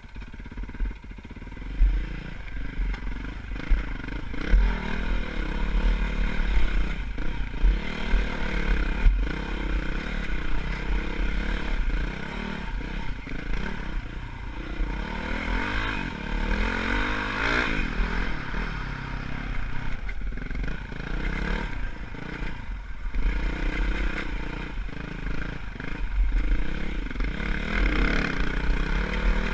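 Dirt bike engine under way on a rough rocky trail, its pitch rising and falling as the throttle is worked, with a few sharp knocks from the bike jolting over rocks.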